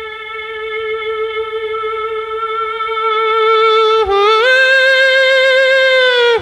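A man's high falsetto yodel, a wordless cattle call: one long held note with a slight vibrato that swells louder, breaks up to a higher note about four seconds in, then drops back down at the end.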